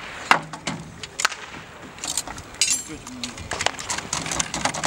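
Sharp metal clicks and clacks of AK-74 rifle parts being handled and snapped together by hand in a timed assembly drill, with a short metallic rattle about two and a half seconds in.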